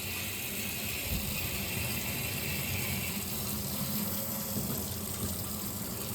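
Water running steadily from a tap on a newly plumbed water line that has just been turned on, with a higher hiss that stops about three seconds in.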